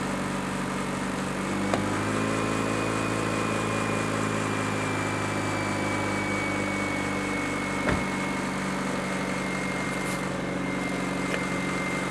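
Car engine idling steadily after a jump start, with a faint high whine over it. About two seconds in there is a click and the idle note shifts slightly, and a single knock comes near eight seconds.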